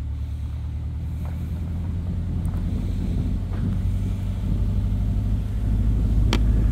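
Low, steady rumble of a motor vehicle running, slowly growing louder, with a sharp click near the end.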